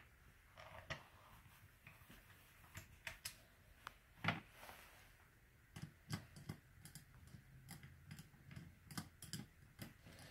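Scattered light clicks and taps of small water softener valve parts being handled.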